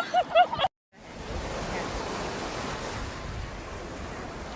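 Steady, even wash of ocean surf with some wind. It starts suddenly about a second in, after a brief dropout.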